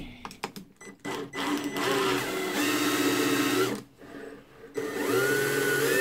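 Einhell TE-CD 18/40 Li cordless drill running unloaded twice, its motor and gearbox whining up to speed each time with a short pause between the runs, after a few light clicks. The drill is being spun freely to check the chuck for wobble.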